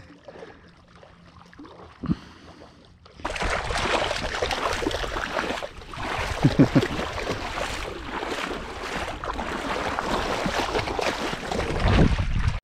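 Splashing of feet wading quickly through shallow river water, with a dog splashing through the shallows alongside. It starts about three seconds in, after a quieter stretch, and goes on as a loud, uneven sloshing.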